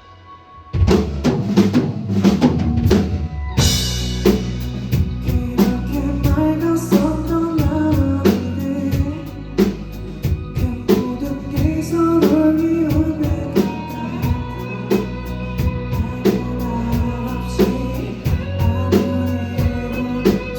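Loud pop-rock music with a heavy drum kit and bass. After a brief hush it crashes back in with a few sharp accented hits, pauses for a moment, then settles into a steady driving beat, with some singing over it.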